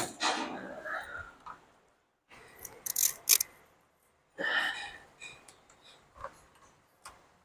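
Sharp clicks and scraping from hand tools, with rubbing noises, as the radiator hoses are being worked off. There are two loud clicks about three seconds in.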